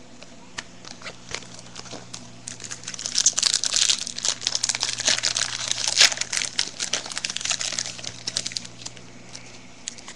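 The plastic wrapper of a baseball card pack being torn open and crumpled: dense crinkling and crackling, busiest in the middle seconds.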